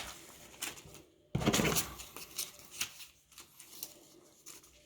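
Packaging and paper leaflets being handled: light rustling, a louder rustle about a second and a half in, then scattered soft clicks and rustles.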